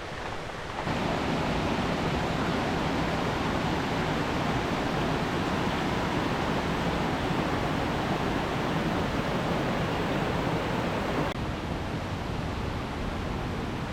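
Steady rushing noise of a waterfall, growing louder about a second in and a little quieter a few seconds before the end.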